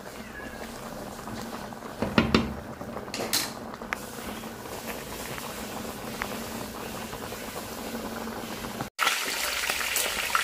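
A pot of fish soup boiling steadily, with a few knocks of a utensil against the pot about two seconds in. After a cut near the end, fish frying in hot oil, a louder crackling sizzle.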